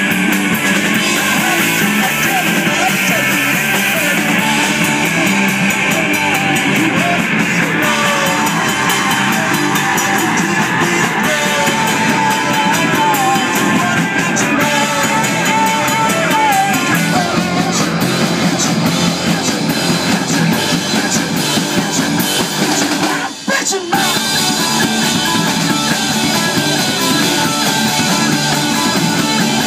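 Live rock band playing electric guitars and a drum kit at full volume, with bending lead-guitar lines in the middle. The band stops for a split second about two thirds of the way through, then comes straight back in.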